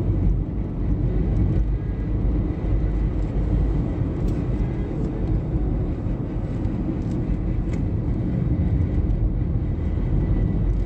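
Steady low rumble of a car driving on the road, tyre and engine noise heard from inside the cabin, with a faint steady high tone running through it.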